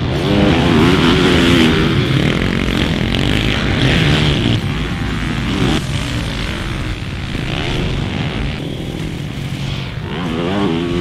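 Motocross dirt bike engines revving hard on the track, the pitch rising and falling as the riders open and close the throttle, with louder passes near the start and near the end.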